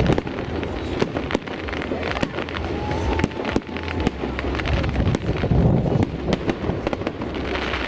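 New Year fireworks going off: a dense, irregular run of sharp cracks and bangs over a continuous rumble.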